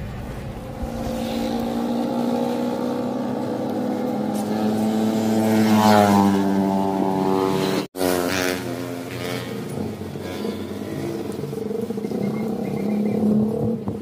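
Motor vehicle engines passing on a road, running steadily, with one rising in pitch as it speeds up about six seconds in. The sound cuts out for an instant near the middle.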